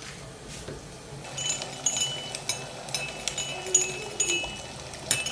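Repeated light clinks of glass or crockery knocking together, starting about a second in, each ringing briefly at the same pitch.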